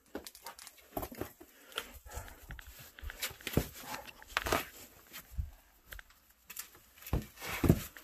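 A person squeezing and crawling through a tight rock crevice: clothing and boots scraping and knocking against the stone in an irregular run, with breaths and grunts of effort, the loudest near the end.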